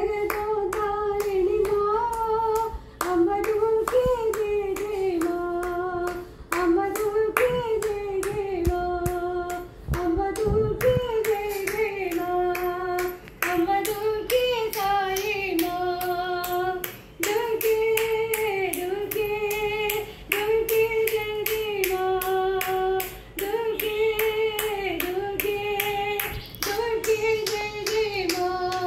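A woman singing a Durga bhajan solo, in repeated short melodic phrases with brief pauses for breath, over regular hand claps keeping time.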